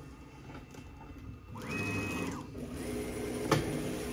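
Stepper motors of a Onefinity Elite Foreman CNC whining through a rapid gantry move: the pitch rises, holds, then falls as the machine speeds up and slows to a stop. A lower steady hum follows, with a single sharp click about three and a half seconds in.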